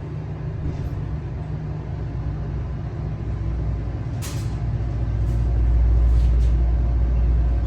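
Elevator machinery running with a steady low hum and rumble, growing louder about five seconds in, with one sharp click about four seconds in.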